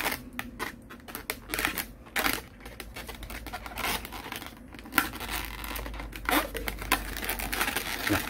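Hands rubbing and pressing inflated latex modelling balloons, giving irregular short scratchy, crinkling rubs as eye stickers are pressed onto the balloon dog's face.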